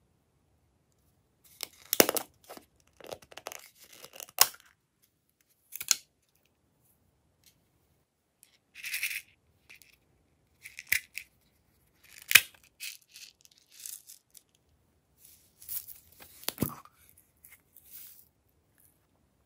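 Small plastic and foam items handled and set down over a glass dish of slime: scattered sharp clicks and taps with short crinkling, tearing-like rustles, and quiet gaps between them.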